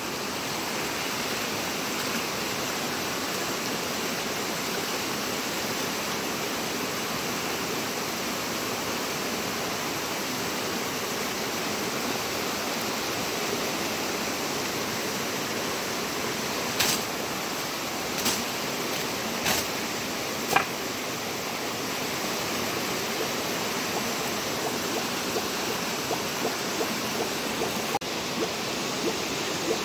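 Steady rush of water running in a concrete spring-fed water tank. A few sharp clicks come about halfway through, and light ticking near the end.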